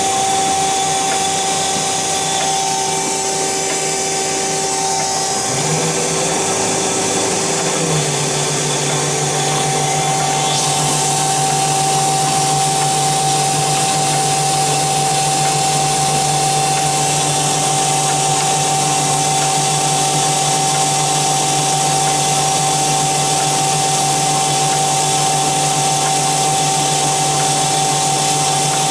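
DoAll TF-2021NC automatic vertical bandsaw running, a steady mechanical hum with a whine over a hiss. The low hum shifts in pitch during the first several seconds and then holds steady, and the hiss grows brighter about ten seconds in.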